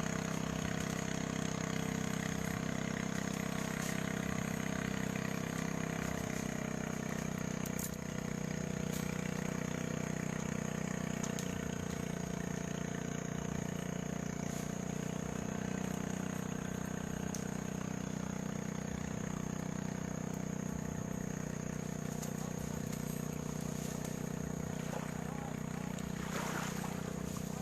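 A small engine running steadily at an even speed, with a broad rushing noise near the end.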